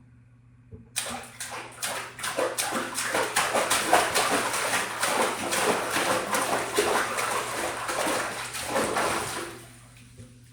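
Water being splashed hard and fast in a small tub: a dense, continuous run of overlapping splashes starting about a second in and stopping abruptly near the end. The recordist judges that the little tub's reflections make it sound small.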